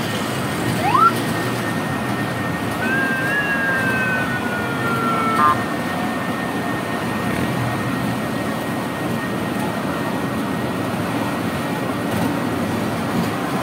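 Small open-carriage rice-field ride train running along its rails, a steady running noise. A short rising whistle-like tone about a second in, then a long high tone sliding slightly down from about three to five and a half seconds in, ending in a short louder burst.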